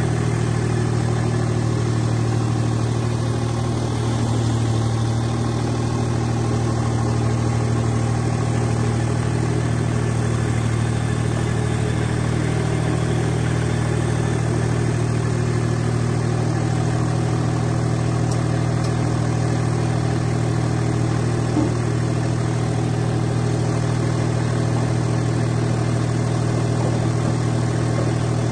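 Massey Ferguson GC1723E compact tractor's three-cylinder diesel engine running at a steady, even speed while the loader holds the man-lift basket raised.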